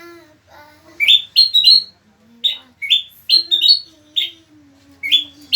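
A kutilang mas bulbul giving short, sharp rising chirps, mostly in quick runs of two or three, repeated every second or so.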